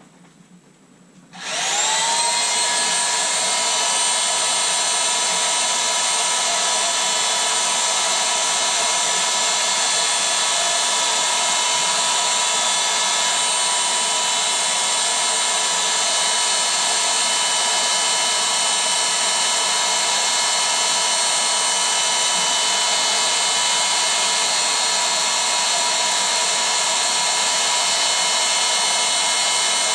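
Small electric air pump or blower switched on, spinning up with a brief rising whine about a second and a half in, then running steadily with a high, many-toned whine and rushing air as it inflates an inflatable.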